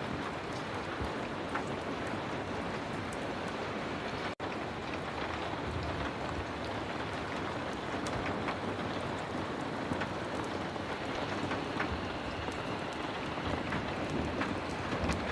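Heavy rain falling steadily, with scattered sharp ticks and crackles through it. The sound cuts out for an instant about four seconds in.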